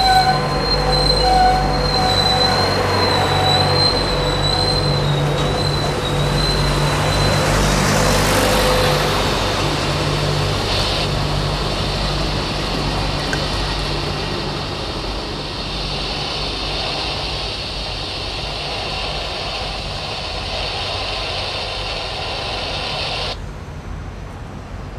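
Amtrak Superliner bilevel passenger cars rolling past on the rails, with wheels squealing in thin high tones over the first several seconds before the squeal dies out. The rumble of the cars fades steadily and drops off sharply near the end as the last car goes by.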